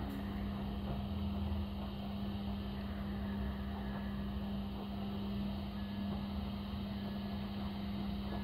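A steady low hum at a single pitch, cutting off suddenly near the end.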